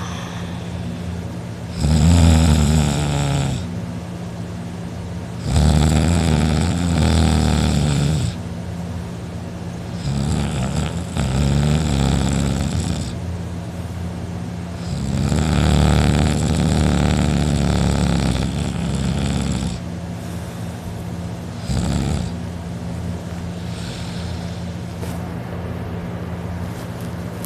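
A man snoring loudly through a wide-open mouth in a drunken sleep: four long snores a few seconds apart, then a short one near the end. A steady low hum sits under it.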